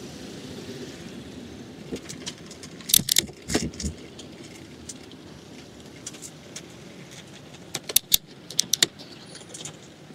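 Steady city traffic noise heard from a moving bicycle, with sharp clattering rattles from the bike going over bumps, in a few quick bursts about three seconds in and again about eight seconds in.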